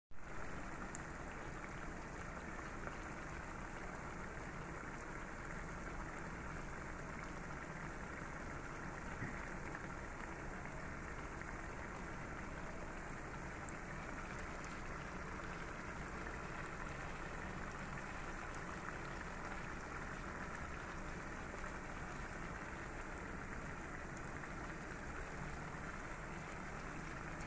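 Steady low sizzle and hiss of a pan of cauliflower-potato curry cooking on the stove.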